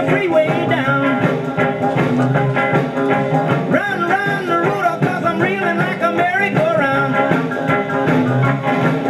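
A 45 rpm record playing through a 1956 RCA 7-HF-45 Orthophonic record player's tube amplifier and speakers: a song with a singing voice over a band.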